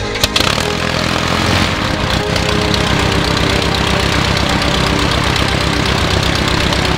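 Van's RV-7 piston aircraft engine catching and settling into a steady idle, its firing pulses fast and even; a few sharp clicks come right at the start.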